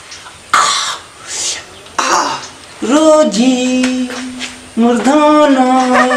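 A man coughing and clearing his throat a few times, then two long drawn-out vocal cries, each held on one pitch for more than a second.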